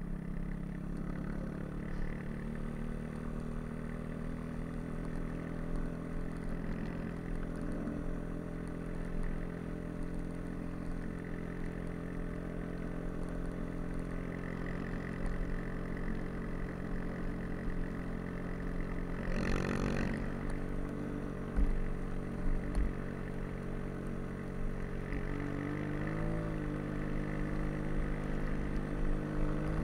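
Snowbike (a dirt bike fitted with a rear track and front ski) engine running at a fairly steady speed while riding through snow. There is a brief rush of noise about two-thirds through, and the revs dip and pick up again near the end.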